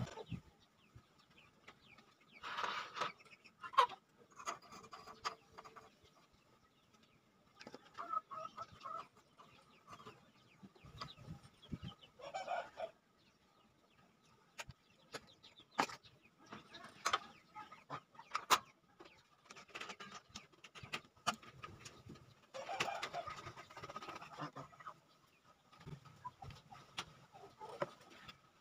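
Chickens clucking now and then, with scattered sharp clicks.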